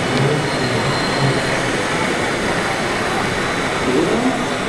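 Busy exhibition-hall din: a steady wash of crowd noise and murmur, with a voice briefly audible near the end.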